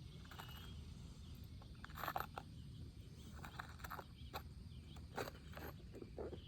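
Faint, irregular scrapes and scuffs of asphalt shingles being handled and slid into place on a roof, over a steady low rumble.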